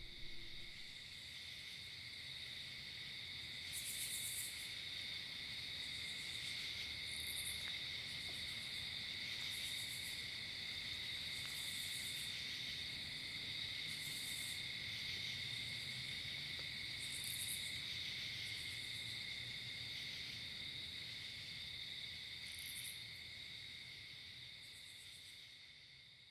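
Steady chorus of calling insects, with brief higher-pitched bursts every couple of seconds, fading out near the end.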